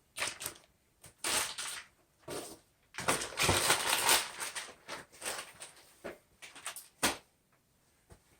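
Packaging rustled and crinkled by hand in several short bursts, the longest about three seconds in, with a sharp click near the end.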